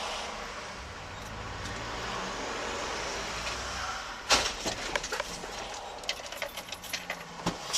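Steady road and engine noise inside a moving vehicle's cab, then a sudden crash about four seconds in as a motorcycle hits the front of the vehicle, followed by a run of knocks and clatters as pieces and the rider come down.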